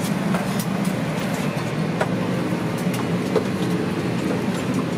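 Steady hum of an Airbus A320 cabin on the ground during boarding, the ventilation air running, with a few faint clicks and knocks.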